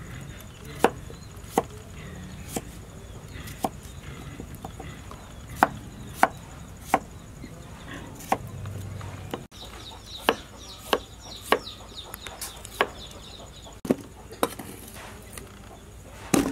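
A kitchen knife cuts peeled potatoes into chunks on a wooden chopping board. Each stroke of the blade makes a sharp knock against the board, coming irregularly about once or twice a second.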